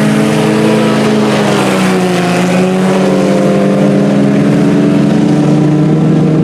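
IMCA Sport Compact race cars' four-cylinder engines running hard in a pack around a dirt oval. The engine drone is loud and steady, dipping slightly in pitch about two seconds in and climbing again.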